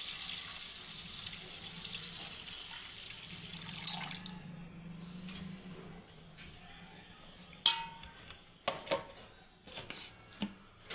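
Water poured from a tumbler into a steel bowl of millets, rice, urad dal and fenugreek seeds to soak them, a steady splashing pour that is strongest for the first few seconds and then fades. Later come a few sharp knocks and one short ringing metallic clang, and a plastic lid is set on the bowl near the end.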